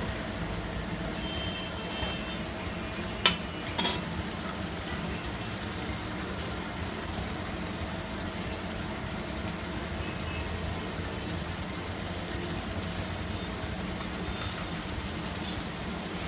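A spatula stirring chicken and fried onions in a nonstick pan on a gas burner, over a steady low background noise, with two sharp knocks of utensil on pan about three and four seconds in.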